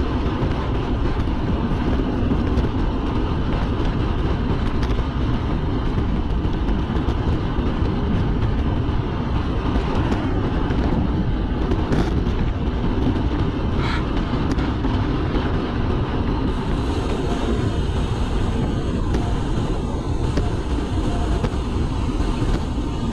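Steady wind noise on the microphone of a rider moving along the road, a dense low rush throughout.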